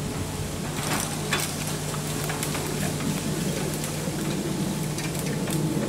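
Ride-on lawnmower engine running steadily as the mower moves through scrub, with a few sharp cracks about a second in.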